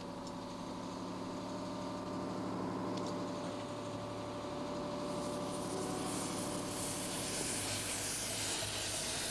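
A railway diesel engine running steadily at idle, a low hum with a few fixed tones. A hiss grows in about five seconds in.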